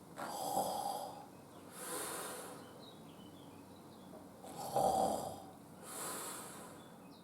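Exaggerated, performed snoring for a sleeping puppet character: two snores about four seconds apart, each a rasping, whistling in-breath followed by a softer breathy out-breath.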